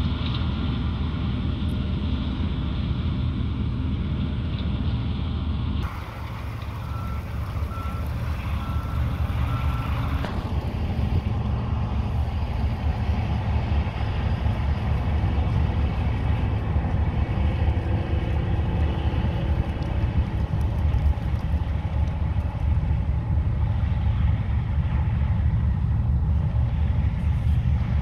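John Deere S780 combines' diesel engines running steadily under harvest load, a low drone. Shortly after a sudden change in the sound, a backup alarm beeps about five times, then the machinery drone continues.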